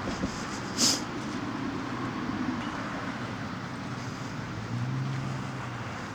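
Steady outdoor background noise with a low, steady hum that grows louder about five seconds in, and one short brushing sound about a second in.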